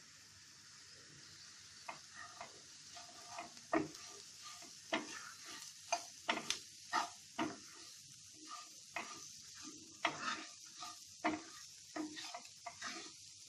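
Onion-and-spice tadka sizzling in a nonstick frying pan while a spatula stirs it, with a steady hiss and many irregular scrapes and taps of the spatula against the pan.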